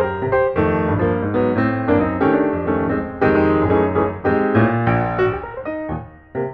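Piano music, a steady run of quick notes and chords, dipping briefly near the end.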